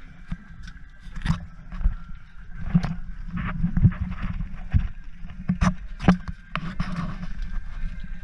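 Knocks and scrapes of handling on a fibreglass boat deck, a dozen or so sharp knocks at uneven spacing, over a steady low rumble and a faint steady whine.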